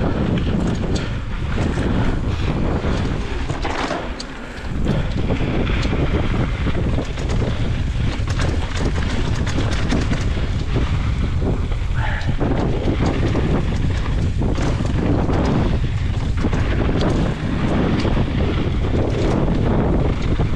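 Wind rushing over the microphone of a mountain biker's camera on a fast dirt-trail descent, with the tyres rolling over dirt and frequent rattles and clicks from the bike. The rush eases briefly about four seconds in.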